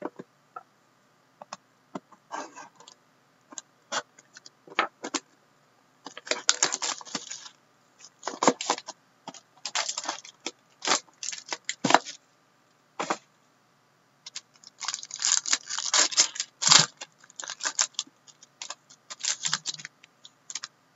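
Hands opening a sealed trading-card box and handling the cards inside: irregular bursts of crinkling wrap and cardboard with sharp clicks, coming in clusters with short pauses between.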